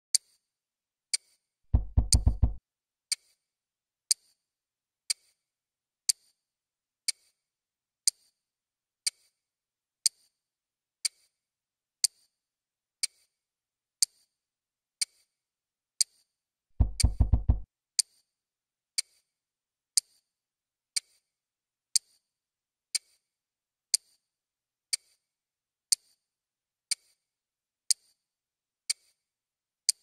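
Crisp watch-style ticking, one sharp tick each second, used as the ad's soundtrack. Twice, about 2 s and 17 s in, a short low pulsing hum sounds for under a second.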